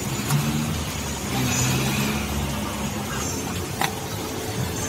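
Road traffic passing, its engines rumbling steadily, with one sharp click about four seconds in.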